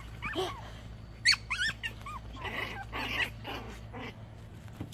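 Small puppies yipping and squeaking in short, high calls as they play, with a quick run of several yips about a second in.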